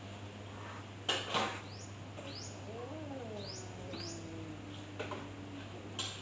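Dog barking, two barks about a second in and one near the end. In between come four short rising chirps and a long low whine.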